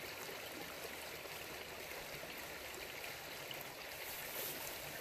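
Shallow creek flowing over rocks, a steady, even babble of running water.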